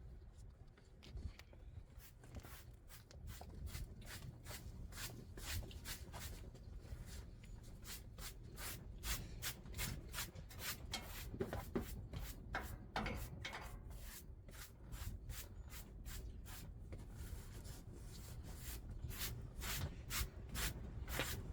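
Broom sweeping sand and dirt across a van floor: quick, repeated bristle strokes, two or three a second, starting about two seconds in.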